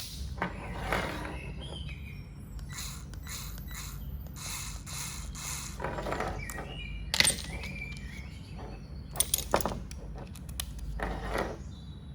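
Handling noises from a screwdriver bit and an electric screwdriver: irregular clicks, rattles and rustling. A few sharp clicks come about seven seconds in and again around nine seconds in.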